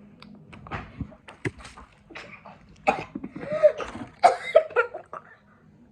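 Girls coughing and gagging in a run of short outbursts that get louder about halfway through, a reaction to a foul-tasting jelly bean.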